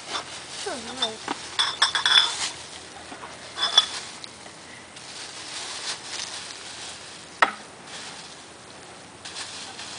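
Light clinks and rattles of small hard objects being handled, in two clusters in the first four seconds, with a single sharp click later, over the rustle of a plastic bag.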